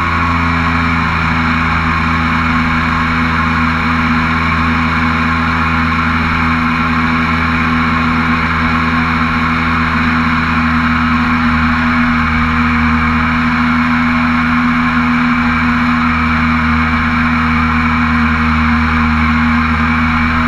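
Mini jet boat's engine running at a steady cruising speed: a loud, even drone that holds one pitch, under a rushing hiss.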